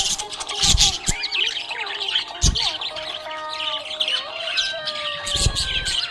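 Budgies chirping and warbling, several at once, in a busy stream of short chirps and whistled notes. Brief low thumps break in three times, about a second in, midway and near the end.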